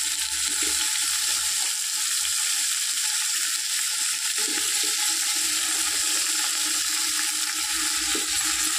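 Chopped vegetables frying in hot oil in an aluminium pot, a steady sizzling hiss.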